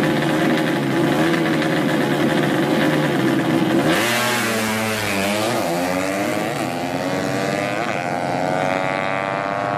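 Tuned 130cc underbone drag-racing motorcycles accelerating hard down the strip, engine pitch climbing and resetting as they shift up through the gears. This starts suddenly about four seconds in, after a steady, dense sound.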